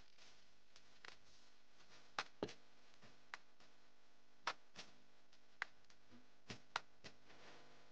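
Faint handling sounds of paper craft work: a paper cut-out being glued and pressed onto a cardstock greeting card, giving a scattering of short soft clicks and taps over near silence.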